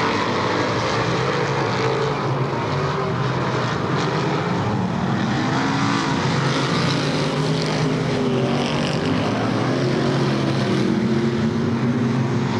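A pack of dirt modified race cars' V8 engines running hard around the track. It is a dense, steady drone, and the engine notes waver up and down as cars pass.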